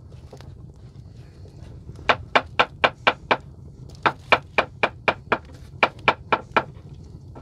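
Knife chopping on a cutting board: two runs of quick, even strokes at about four a second, with a short pause between them.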